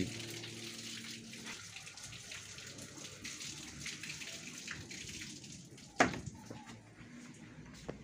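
Faint steady rush of running water, with a single sharp knock about six seconds in.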